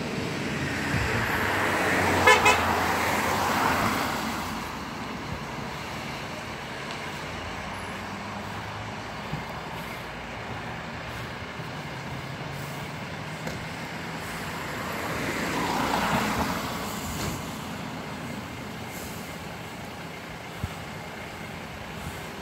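Traffic passing on a wet road: tyre hiss swells and fades about two seconds in and again about sixteen seconds in, with a short horn toot during the first pass. A low, steady engine rumble lies underneath in between, as the fire engine pulls out of its bay.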